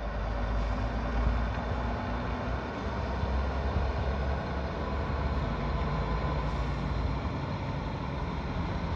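Heavy trucks' diesel engines running across a wide yard, a steady low rumble under an even wash of noise.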